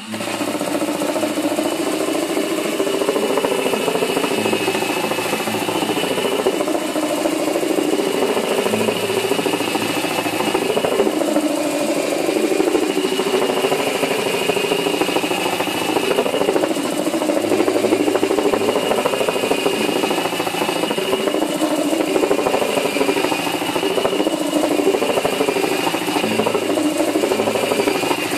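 Cordless drill spinning a wooden rolling pin wrapped in 80-grit sandpaper as a makeshift drum sander, grinding across a board: a steady motor whine with sanding and a rattle, starting right at the beginning. The rattle comes from the drum wobbling in its end cap, which has no bearing.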